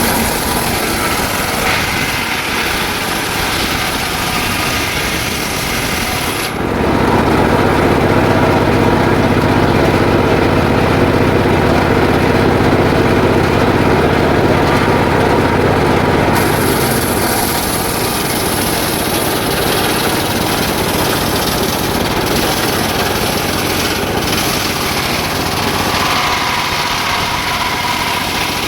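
Engine-driven circular saw running and ripping jackfruit wood into planks, a continuous loud machine sound. Its tone changes abruptly about six seconds in, and again around seventeen seconds.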